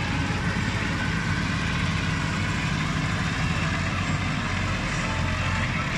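Massey Ferguson farm tractor diesel engine running steadily, a front-loader tractor moving while carrying a hay bale.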